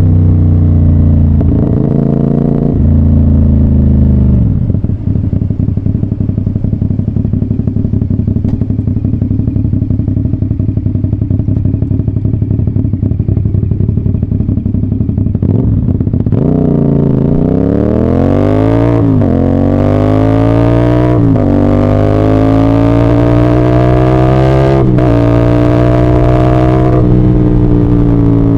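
CF Moto 450SR-S parallel-twin motorcycle engine heard from the rider's seat: it drops back after a few seconds and runs low and steady, then accelerates hard, its pitch climbing and dipping through several quick upshifts.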